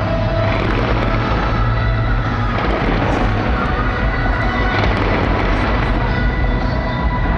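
Fireworks going off continuously, a dense run of bangs and crackling, with music playing along with the show.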